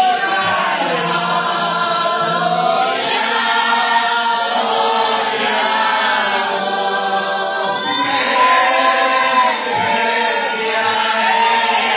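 A congregation singing a hymn together, many voices at once, continuing without a break.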